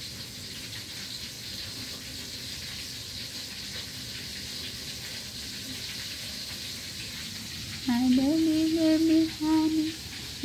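A steady, even hiss for most of the stretch. About eight seconds in, a voice starts humming a tune: a rising first note, then held notes with short breaks, much louder than the hiss.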